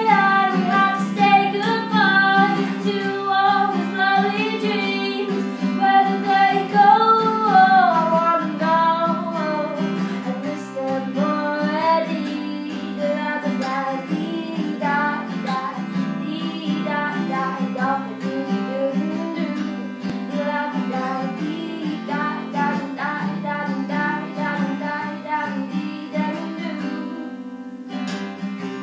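A woman singing to her own strummed acoustic guitar. The singing is strongest in the first few seconds and then quietens over steady strumming, and the song ends on a final chord left ringing near the end.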